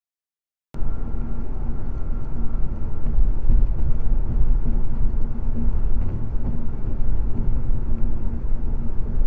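Silence, then from just under a second in, the steady low rumble of a car cruising at highway speed, heard from inside the car through a dashcam's microphone.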